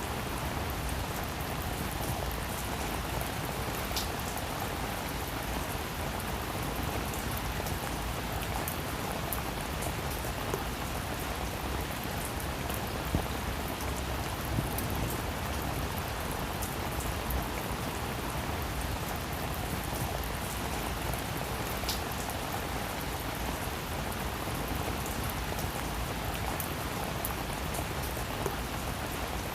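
Heavy rain falling steadily, a dense even hiss with scattered sharper drop impacts.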